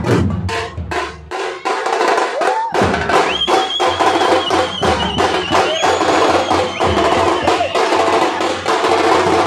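Teenmar street drum band playing: large bass drums and smaller stick-beaten drums pound out a fast, loud rhythm. The beat thins out briefly a second or two in, and a long, steady high tone rings over the drumming in the middle.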